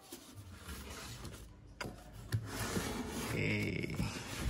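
Handling noise as the metal rack unit is touched and shifted on its cardboard box: rubbing and scraping, with a couple of soft knocks about two seconds in.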